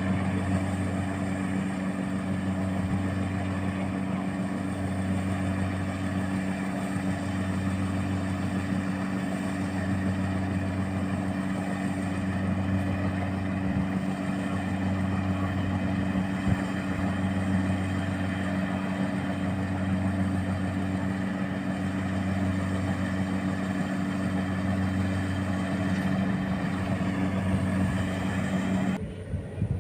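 Rice combine harvester's engine running steadily: a constant hum with a slow throb about every two seconds. It cuts off abruptly shortly before the end.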